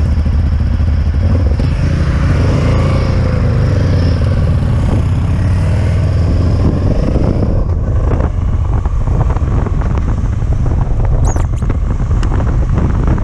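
Honda Transalp 700's V-twin engine running as the motorcycle rides along the road, heard from on the bike. The engine note wavers in pitch a few seconds in.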